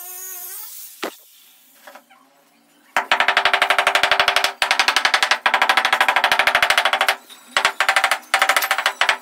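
A wooden pole rattled rapidly against a granite floor slab, a fast even train of knocks about a dozen a second that stops and starts in bursts, to tamp the slab down into its mortar bed. A single knock comes about a second in, before the rattling begins.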